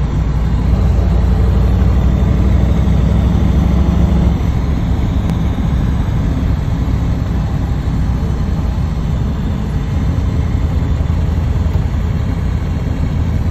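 Vehicle engine and road noise at highway speed, heard from inside the cab: a deep steady drone, heavier for the first four seconds or so.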